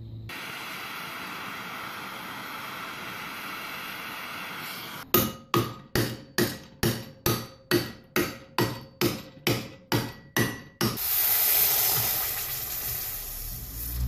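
A hammer striking a 1/4-inch steel plate held in a bench vise, bending it into a bracket: about fifteen even blows at two or three a second, each with a short metallic ring. A steady hiss comes before the blows, and a louder hiss follows them near the end.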